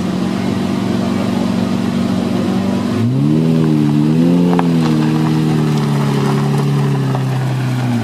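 Lamborghini Murciélago's V12 engine running at a steady low speed, then its revs rising smoothly about three seconds in as the car pulls away slowly, wavering briefly and easing back down.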